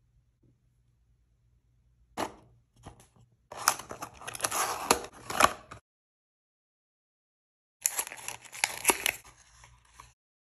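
Hands opening small toy packaging: a few sharp crinkles, then about two seconds of dense crinkling and tearing that stops abruptly. After a silent gap comes more crinkling and clicking as a miniature cardboard box is opened and a tiny plastic figure is pulled out.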